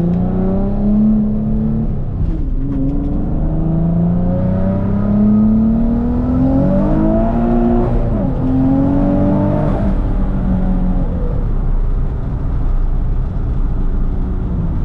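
Twin-turbocharged 2006 Nissan 350Z's VQ35DE V6 pulling hard under acceleration, its pitch climbing and dropping back at each gear change several times, then settling to a steadier note near the end.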